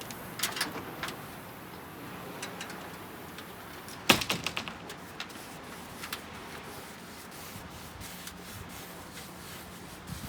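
Scattered knocks and clicks, the loudest a sharp knock about four seconds in followed by a quick run of smaller clicks.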